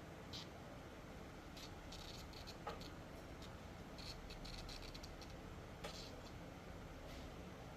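Faint scattered clicks and light taps, a few close together around two and four seconds in and two sharper ticks near the three- and six-second marks, over a low steady hiss.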